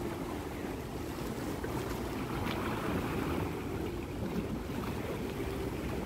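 Steady waterfront noise: wind rumbling on the microphone over a low, continuous drone of boats on the water.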